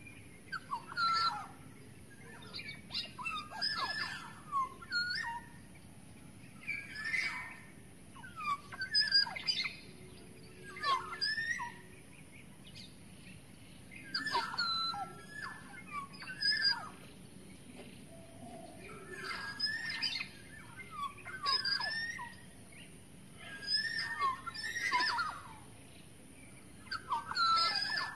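Black-naped oriole (kepodang emas) calling over and over, short phrases of whistled notes that glide up and down in pitch, one phrase every two seconds or so.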